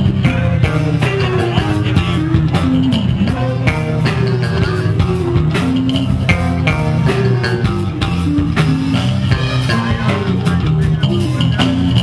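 Live rock band playing an instrumental jam: electric guitar playing a moving lead line over bass guitar and drum kit, with steady drum hits throughout.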